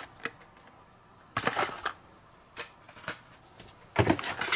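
Hot Wheels blister-card packages, cardboard backing and plastic bubbles, rustling and clicking as they are handled. A short rustle comes about a second and a half in, and another near the end as a stack of cards is pulled out of the cardboard shipping box. A few light clicks fall in between.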